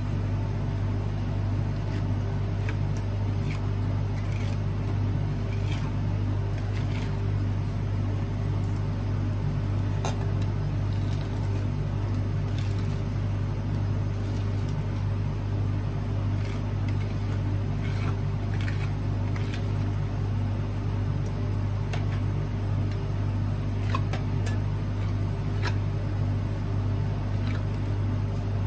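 Refrigeration unit of an ice roll cold-plate machine humming steadily. Scattered clicks and scrapes of metal spatulas on the frozen steel plate come through as the ice cream is scored and rolled.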